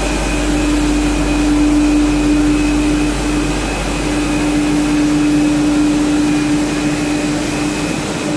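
HDPE double-wall corrugated pipe extrusion line running: steady machine noise with a strong hum, which drops out briefly about three seconds in, and a fainter high whine over an even hiss.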